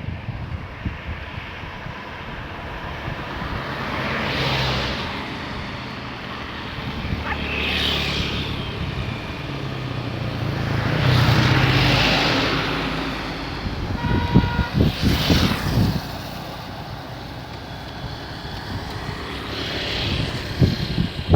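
Buses and other vehicles driving past one after another, each swelling and fading; about five pass in turn. A short horn sounds about two-thirds of the way through.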